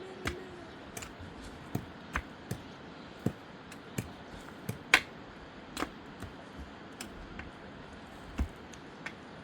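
Sharp knocks and clicks at irregular intervals, roughly one or two a second, the loudest about five seconds in.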